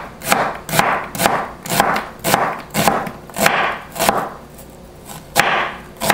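Chef's knife dicing a red onion on a plastic cutting board: about nine quick chopping strokes, roughly two a second, each a sharp tap of the blade on the board with a short crunch through the onion, and a pause of about a second before the last stroke.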